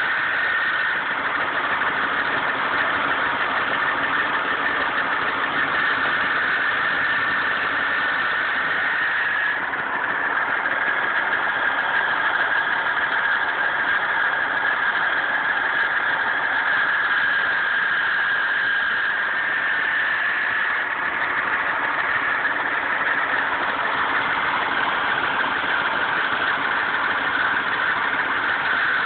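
Engine idling with a steady grinding noise, a strong high-pitched grind over the running engine that shifts slightly in pitch twice.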